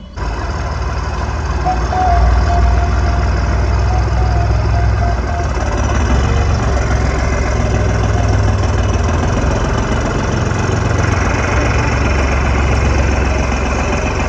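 Tractor's diesel engine running steadily with a low, even throb, cutting in suddenly right at the start.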